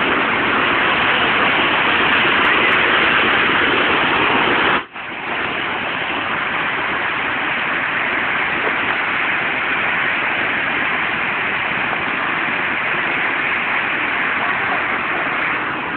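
Waterfall close by: a steady rush of falling water. The sound cuts out for an instant about five seconds in, then continues slightly quieter.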